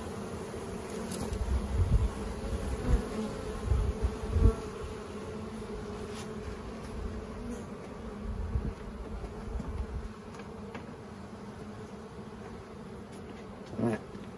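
Honey bees buzzing as a steady hum while they fly in and out of a nuc box's newly opened entrance, with a few low thumps in the first few seconds.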